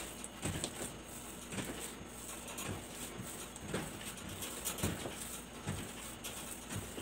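Ube pandesal dough being kneaded by hand on a wooden table, pushed and folded over, giving a soft thud about once a second.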